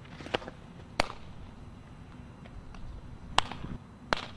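Sharp leather pops of a softball smacking into gloves during pitching practice: four crisp smacks, the loudest about a second in and again about three and a half seconds in, as the pitch hits the catcher's mitt and the ball is caught again.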